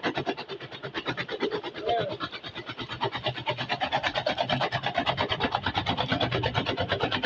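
Chaff cutter chopping green maize stalks for silage: a fast, even run of chopping clicks, about ten a second.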